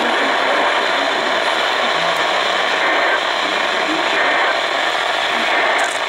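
Steady static hiss from the speaker of a Red Cross emergency weather radio tuned to NOAA Weather Radio, with no broadcast voice: the receiver's noise between alert messages.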